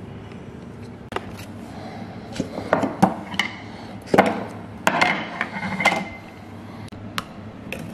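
Kitchen clatter: a plate and utensils clinking and knocking as food is served, about a dozen sharp knocks and clinks, busiest in the middle.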